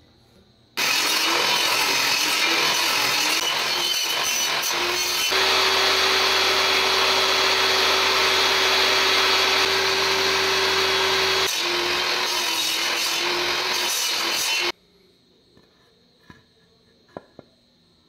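Bench table saw running and cutting wood, with a steady motor tone under the cutting noise. It starts abruptly about a second in and stops abruptly near the end, with a few light clicks after.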